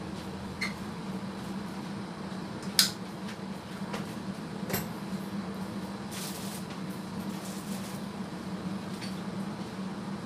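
Kitchen sounds around a stockpot heating on a gas burner: a steady low hum with scattered light knocks and clicks, and one sharp metallic clink about three seconds in.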